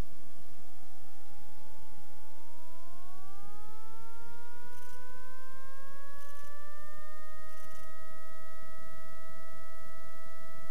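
Piper Cherokee PA-28-235's six-cylinder Lycoming engine and propeller at takeoff power during the takeoff roll, heard from inside the cabin. Its whine rises in pitch over several seconds, then holds steady over a constant rumble.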